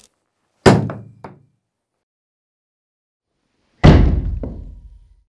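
Two sharp wooden knocks from a wooden mallet striking a wooden board resting on an apple. The first comes about 0.7 s in, followed by two light taps as the board settles. The second, the loudest, comes near the 4 s mark and dies away over about a second.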